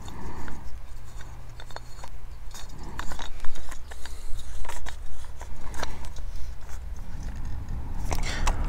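Hard plastic case of an MSR Pocket Rocket stove being opened and the stove lifted out: scattered small clicks and light plastic rattles, with a low rumble underneath.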